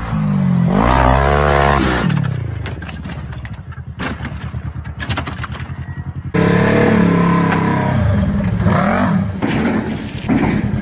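Off-road side-by-side engines revving in several short cut clips, with a stretch of rapid ticking pulses in the middle. From about six seconds in, a Polaris RZR's engine revs loudly as it is driven onto wooden ramps at a trailer.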